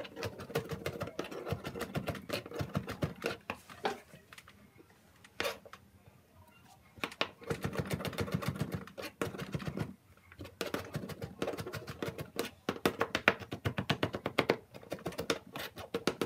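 Kitchen knife rapidly chopping and mincing garlic on a plastic cutting board: fast runs of sharp taps, stopping for a few seconds about five seconds in, then resuming.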